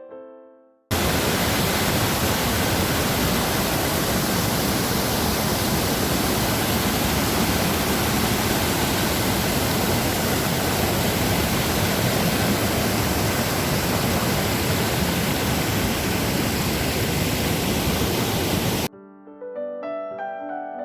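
Steady rush of the Gundichaghagi waterfall on the Musala River, heard close up as an even roar of falling water. It cuts in abruptly about a second in and cuts off near the end, where soft piano music takes over.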